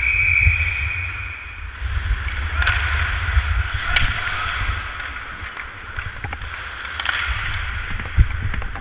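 Ice hockey skates scraping and carving across the ice, with sharp clacks of sticks against the ice and puck, picked up by a helmet-mounted camera with wind rumble on its microphone. A steady high tone sounds for the first two seconds or so.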